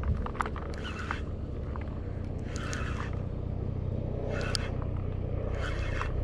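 Fishing reel being cranked in short spurts, about four in all, while playing a hooked fish, over a steady low rumble.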